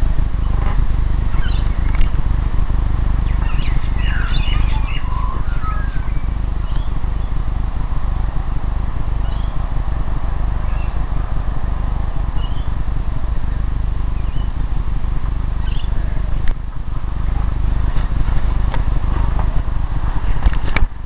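Wind rumbling on the microphone, with birds chirping now and then, most often in the first few seconds.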